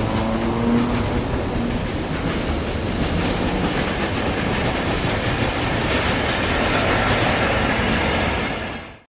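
Locomotive-hauled train of new subway cars passing, wheels clattering over the rail joints in a steady rush. The sound cuts off abruptly near the end.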